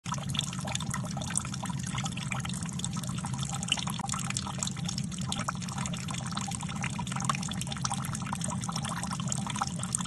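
Water being skimmed off a steam boiler, pouring in a thin steady stream from a cast-iron fitting into a bucket and splashing, carrying the surface oil off the boiler water. A steady low hum runs underneath.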